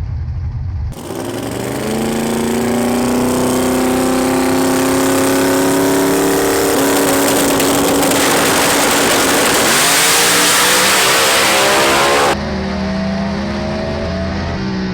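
V8 engine of a 4000 hp VB Commodore radial drag car, a ProLine 481X, launching at full throttle about a second in. Its pitch climbs steadily as it pulls, and it turns into a loud roar. Near the end the sound cuts abruptly to a quieter engine note falling in pitch.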